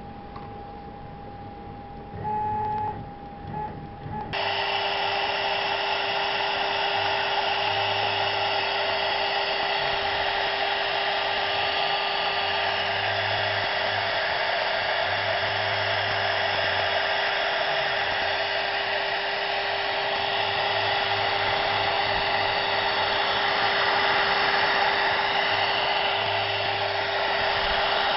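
CNC router spindle with an 1/8 inch bit, milling oak. A loud, steady whine with a constant high tone comes in suddenly about four seconds in and runs on, its low hum rising and falling as the cut goes.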